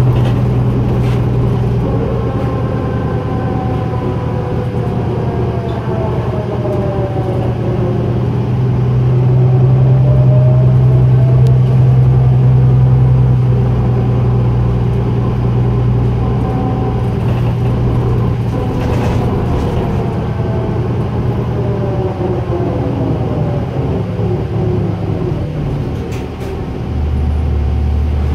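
Cabin sound of a 2004 New Flyer DE40LF diesel-electric hybrid bus under way: a steady low drone from the Cummins ISL diesel, with the Allison hybrid drive's whine rising and falling as the bus speeds up and slows. Near the end the whine dies away and the drone drops lower as the bus slows.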